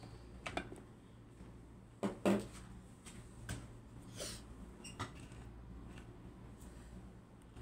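Scattered knocks and scrapes of a wooden spatula and hands working a wok of shrimp in tomato gravy, the loudest knock a little after two seconds in, over a steady low hum.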